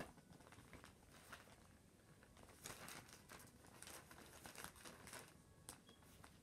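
Faint rustling and crinkling of a sheet of lined notebook paper being handled, in a cluster of small crackly strokes through the middle of the stretch.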